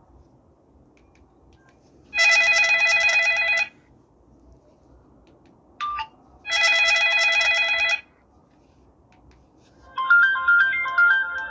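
A basic mobile phone's loudspeaker playing ringtones: two identical electronic ring bursts, each about a second and a half long and about four seconds apart, then a stepping beeped melody starting near the end. The owner says the worn loudspeaker sounds a bit raspy, and blames iron dust drawn onto its magnet.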